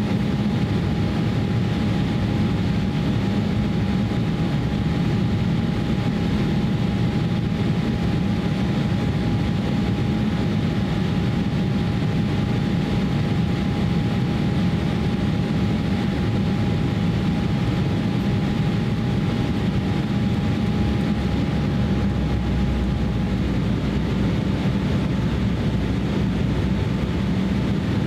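Steady cabin noise inside an Embraer E170 jet airliner in flight: a continuous deep drone of the engines and the air rushing past. A thin steady whine runs over it and stops a few seconds before the end.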